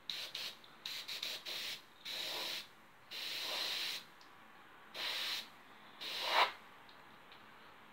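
Handheld air gun blowing bursts of air across wet resin: a few quick short puffs, then four longer blasts of about half a second to a second each, the last one rising to the loudest.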